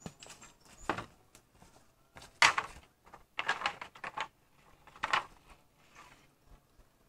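A series of irregular knocks and short scraping strokes of hands-on work. The loudest comes about two and a half seconds in, followed by a quick cluster of several strokes and one more about five seconds in. A few high bird chirps sound in the first second.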